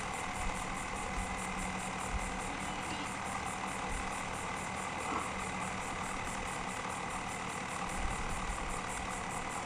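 Steady low mechanical hum, like an idling engine, with a faint, rapid, regular pulsing high above it.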